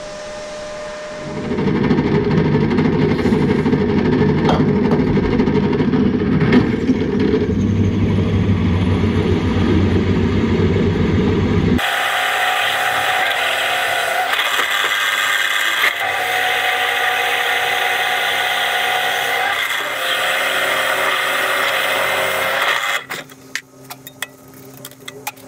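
A pedestal drill running and cutting through a thick steel plate: a steady machine noise with a few held tones. It stops suddenly a couple of seconds before the end, and light metallic clicks follow. Before the drilling there are about ten seconds of a louder, low-pitched noise from another source that cuts off abruptly.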